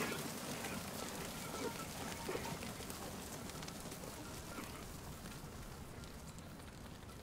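A herd of goats moving through a field: a few short calls over a steady rustling hiss, all fading out slowly.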